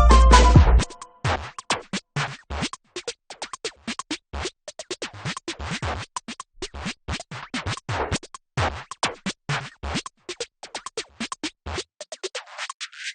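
Background electronic music. A full passage with bass and pitched notes breaks off about a second in, leaving sparse, glitchy clicking percussion, with a filter sweep near the end.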